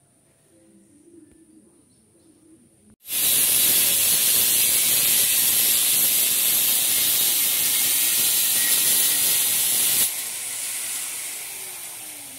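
An angle grinder works on steel grill bars, a loud, steady, hissing grind that starts suddenly about three seconds in. About ten seconds in it drops and trails off with a falling pitch as the grinder winds down.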